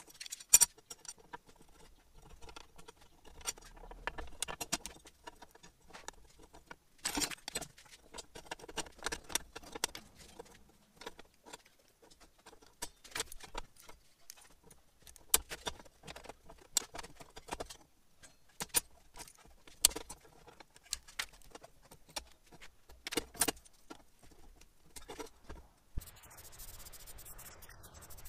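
Steel angle and bar pieces clinking and knocking as they are handled and set down on a steel workbench, in scattered short strikes with pauses between. Near the end a spray paint can hisses steadily.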